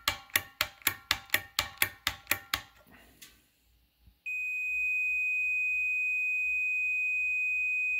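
A quick run of sharp, ringing clicks, about four a second, stops a little under three seconds in. About halfway through, a digital multimeter's continuity beeper starts a steady, unbroken high beep as its test leads are shorted together.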